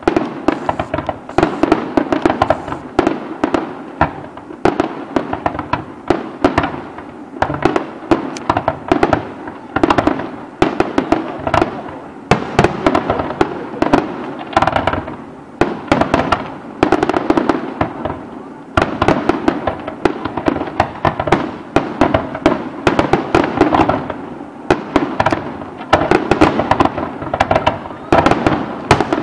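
Aerial fireworks display: a continuous barrage of shell bursts, many sharp bangs in quick succession mixed with crackling.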